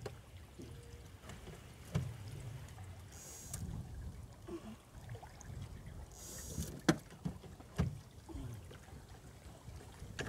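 Water lapping against the hull of a small aluminium boat over a low rumble, with a few sharp knocks of gear being handled in the boat, the loudest about seven and eight seconds in.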